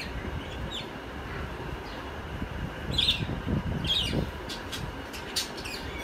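Caged budgerigars giving several short chirps, the loudest about three and four seconds in, with a few sharp ticks near the end, over a low steady rumble.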